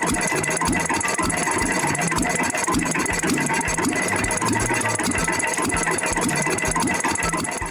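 A machine running steadily with a fast rattle and a high steady whine.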